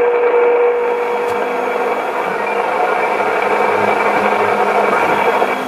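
Sony ICF-2001D shortwave receiver's speaker playing a steady hiss of static on the 20-metre amateur band. A steady whistle sounds through it for about the first second.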